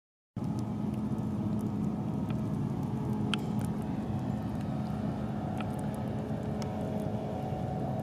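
Steady low outdoor rumble with a faint steady hum and a few faint ticks.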